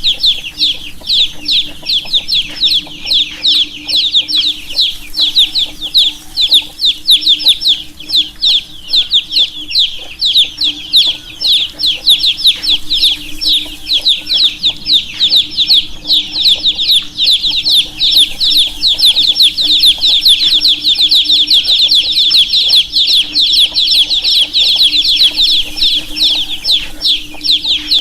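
A brood of baby chicks chirping continuously, many rapid high-pitched peeps overlapping, each note falling in pitch. A faint steady low hum sits underneath.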